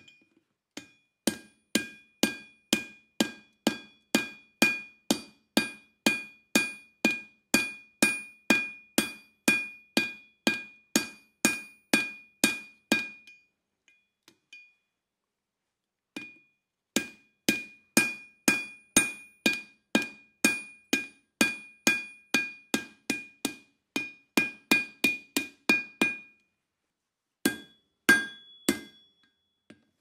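Blacksmith's hand hammer striking red-hot steel bar on an anvil as the carabiner's eye is forged over the horn. The blows come in a steady run of about two to three a second, each ringing the anvil with a clear high tone. They break off for about three seconds halfway through, start again, and end with a short burst of a few more blows near the end.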